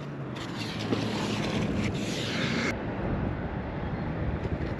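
Wind buffeting the microphone: a steady rushing noise with a hiss on top that cuts off suddenly about three seconds in.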